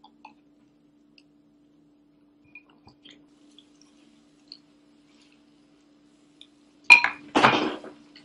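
Dog eating dry cereal from a bowl: faint scattered clicks and crunches, then near the end a sharp clink followed by a louder noisy crunching rustle about half a second long as its face goes into the bowl.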